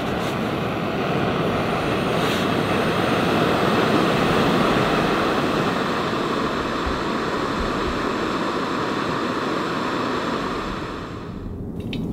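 Jetboil backpacking stove's gas burner running at full flame, a steady hissing rush as it heats a cup of water. It cuts off abruptly about 11 seconds in, followed by a few light clicks.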